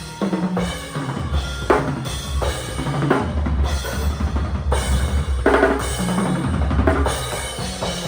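Drum kit being played, with kick and snare hits in a rhythm over sustained low bass notes.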